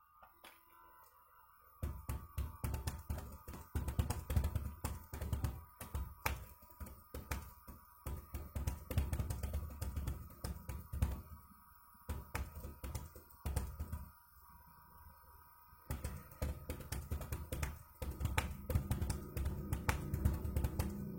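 Fast touch-typing on an external computer keyboard during a timed typing test: rapid runs of keystroke clicks starting about two seconds in, broken by a couple of short pauses.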